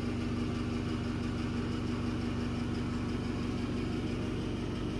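Steady mechanical hum: one constant buzzing tone over a low drone, unchanging in pitch and level.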